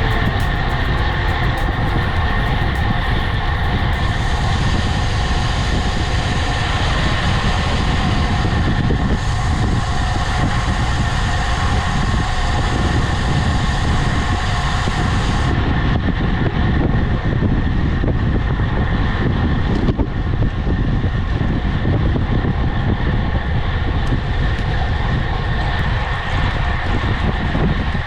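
Steady, loud rumble of wind and road noise while riding a road bike, with a few constant tones over it.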